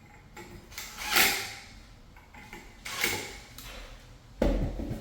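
Ceiling fan parts being handled: two scraping, sliding sounds, the first about a second in, then a dull, heavy thump near the end as something is set down.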